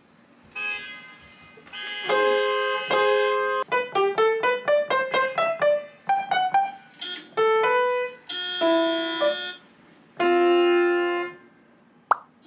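Upright piano played by hand: a note, two struck chords, a quick rising run of single notes, then more single notes and two more chords, with a short click near the end.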